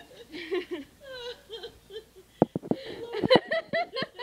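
High-pitched, uncontrolled laughter, breaking up into short gliding squeals, with a run of sharp, loud bursts in the second half.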